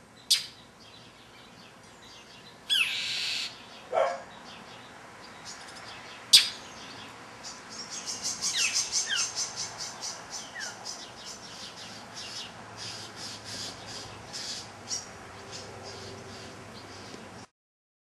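Northern mockingbird scold-calling at a predator: a few sharp, loud calls and a harsh rasping squawk, then a rapid run of short, high chirps, several a second. It all cuts off suddenly near the end.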